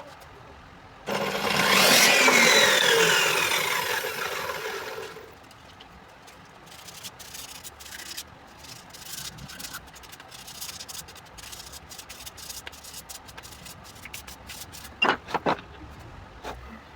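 An electric woodworking tool runs for about four seconds, starting suddenly, its pitch falling as it slows. It is followed by lighter scraping and rubbing on wood, with a few sharp knocks near the end.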